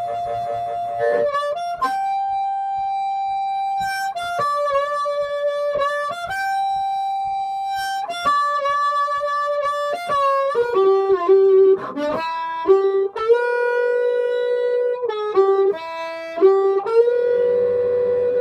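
Harmonica played cupped around a bullet microphone: long held notes with bends, then faster runs of short notes from about ten seconds in.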